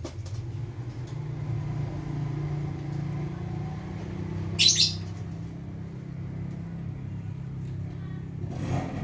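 Steady low traffic rumble with a single short, shrill bird call about halfway through, likely from a caged bird at the shop.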